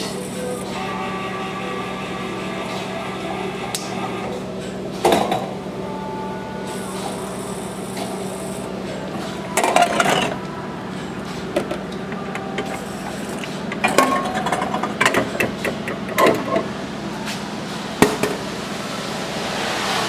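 Retro tempura udon vending machine finishing its cooking cycle, a steady hum under it. Clunks and knocks come about five and ten seconds in, a cluster a few seconds later and one sharp knock near the end, as the bowl is delivered to the hatch and taken out.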